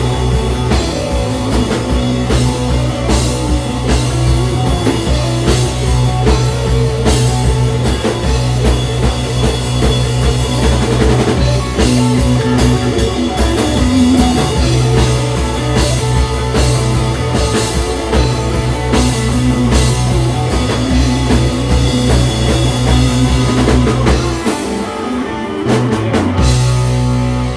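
A live rock band plays an instrumental passage on electric guitars, electric bass and drum kit. Near the end the bass and kick drum drop out for about two seconds, then come back in.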